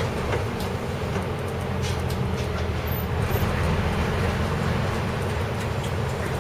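Cabin sound of a diesel city bus driving slowly: a steady low engine drone with tyre noise from the wet, slushy road and a few faint ticks of rattling.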